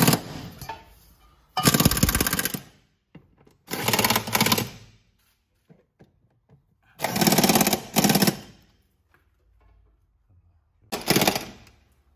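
Impact wrench hammering on bolts in about five short bursts of a second or so each, with pauses between them.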